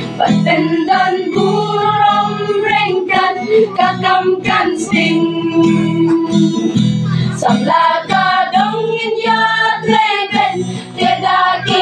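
A choir of mostly female voices singing together, accompanied by a strummed acoustic guitar.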